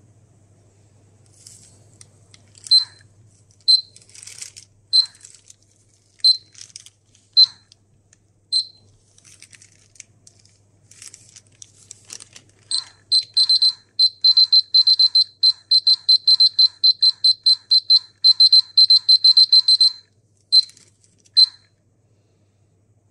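Polimaster PM1703-GNA dosimeter's beeper sounding short high beeps, single ones a little over a second apart at first. Near the middle it breaks into a rapid run of about five beeps a second lasting some seven seconds, then gives two more single beeps. Scratchy handling noises sound between the early beeps.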